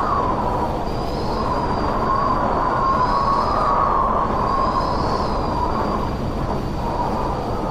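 Gale-force wind howling: a steady rush with a whistling tone that slowly wavers up and down in pitch.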